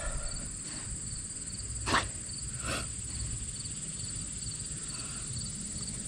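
Summer insects chirping in the grass: a steady high buzz with a pulsing chirp repeating about three times a second. Two brief sharp noises break in around two seconds in.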